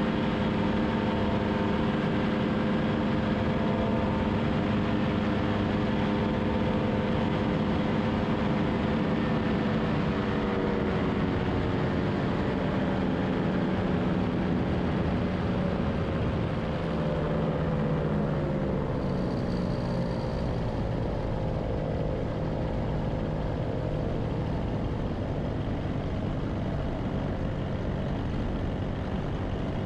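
Two-stroke paramotor engine and propeller running steadily in flight, with rushing air noise. From about a third of the way in, the engine note slowly drops over several seconds, then holds steady at a lower pitch.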